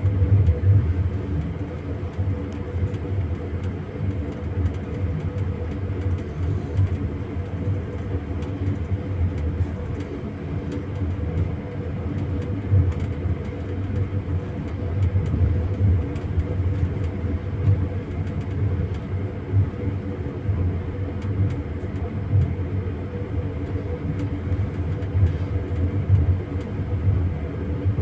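A double-decker passenger train running, heard from inside a compartment. There is a steady low rumble with the clatter of the wheels over the rails, plus scattered small clicks and rattles from the coach.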